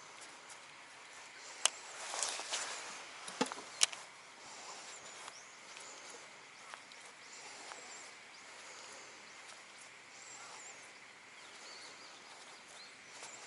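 Quiet outdoor ambience by still water with faint distant bird chirps, broken about two to four seconds in by a handful of sharp clicks and knocks.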